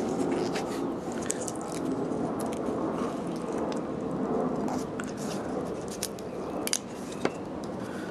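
Black Plasti Dip rubber coating being peeled off the chrome of a Camaro's front bow tie emblem, giving irregular small crackles and tearing sounds over a steady background noise.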